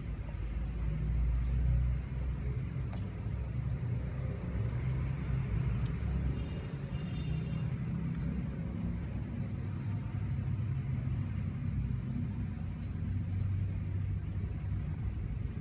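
Low, steady rumble of road traffic, with a louder swell about a second in as a vehicle passes.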